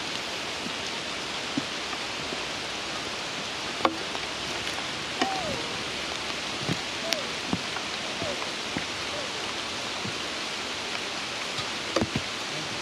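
Steady rain falling on leaves and stone, with a few short gliding calls in the middle and scattered small clicks and taps.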